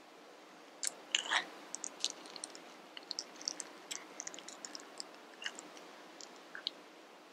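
Metal spoon scooping avocado flesh out of the skin: a run of small clicks and scrapes that starts about a second in and thins out near the end.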